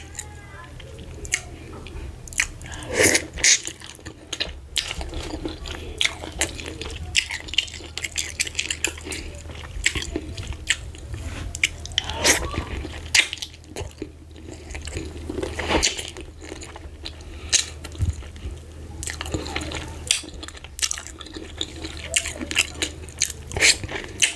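Close-miked eating: chewing with many irregular mouth clicks and smacks while eating fufu with ogbono soup.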